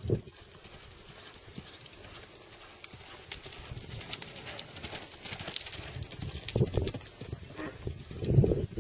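Hoofbeats of a horse cantering on a sand arena: irregular light strikes and ticks.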